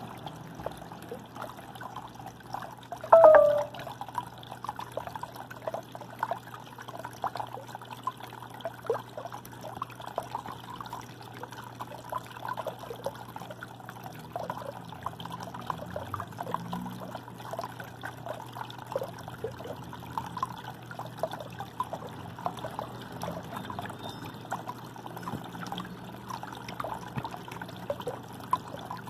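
Water trickling and bubbling continuously, with many small droplet-like plinks over a steady low hum. About three seconds in comes a short, loud pitched sound that falls in pitch.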